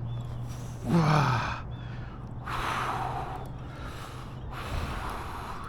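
A man breathing hard while fighting a hooked fish: a short falling vocal grunt about a second in, then two long, forceful breaths out.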